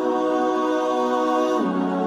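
Slow, new-age style background music of long held notes. The notes step down to a lower chord about one and a half seconds in.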